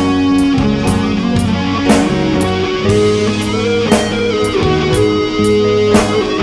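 Guitar-led music: sustained guitar chords over a steady drum beat.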